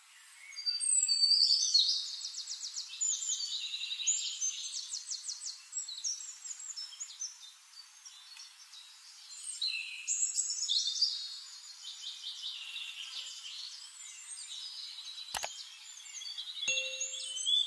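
Several songbirds chirping and trilling in a busy, overlapping chorus of high notes. Near the end comes a single sharp click, then a brief low chime, matching a subscribe-button animation.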